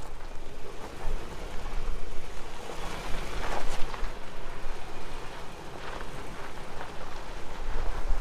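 Vehicle crawling over a rocky dirt trail: tyres crunching over gravel and stones over a steady low engine rumble, with a few knocks from rocks under the wheels.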